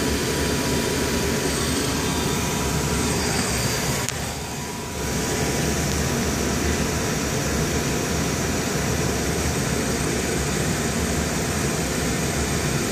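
Steady whir of fans and moving air in an aircraft cockpit, with a faint steady tone; it drops briefly about four seconds in.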